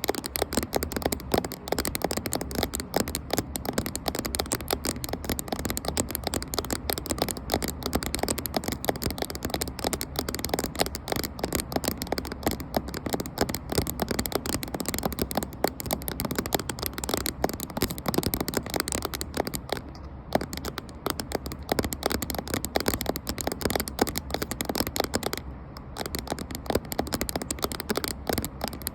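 Rapid tapping on a camera: a dense, near-continuous stream of light clicks, broken by two brief pauses in the last third.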